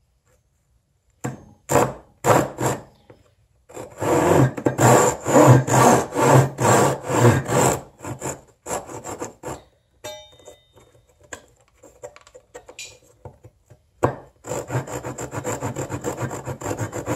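Gyokucho Razor ryoba Japanese pull saw cutting a small block of wood, stroke after stroke. After a second of quiet come a few single strokes, then a run of strong rasping strokes about two a second, a stretch of lighter strokes, and near the end another steady run of quicker, finer strokes.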